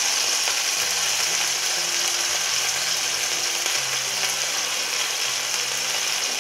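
A piece of veal tafelspitz frying in hot fat in a pan, giving a steady sizzle with crackling, under a faint low hum that switches on and off.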